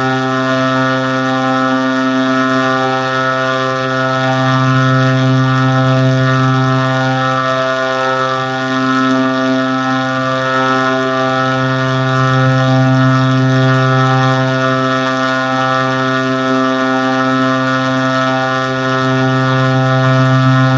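A continuous droning tone with many overtones, holding one low pitch while its loudness swells and eases every few seconds.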